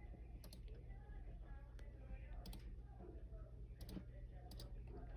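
Faint, scattered clicks of a computer mouse and keyboard, a few every second or so, over a steady low hum.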